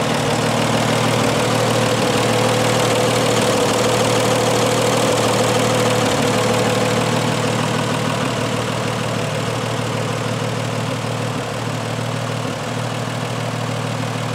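A 1929 Chevrolet truck's 194 cubic inch inline-six ("Stove Bolt 6") engine idling steadily.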